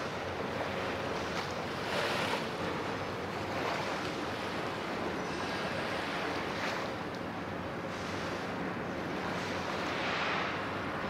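Wind rushing steadily over the microphone, with gusts swelling about two seconds in, again near seven seconds and near the end.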